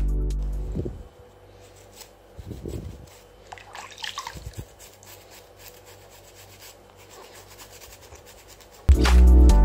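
Electronic background music fades out in the first second, leaving soft water sloshing and rubbing as hands scrub feet soaking in a basin of water, with a few small splashes in the middle. The music cuts back in abruptly near the end.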